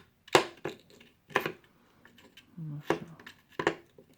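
Steel impact sockets clinking as they are pulled off and pushed onto the posts of a socket holder: about six sharp clicks and knocks at uneven intervals.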